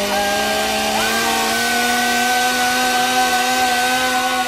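Chainsaw held at high revs, running at a steady pitch.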